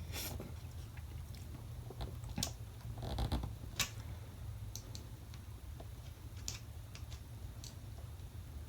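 Scattered light clicks and taps of small hand tools being handled, a few single ticks and a short cluster of taps about three seconds in, over a faint steady hum.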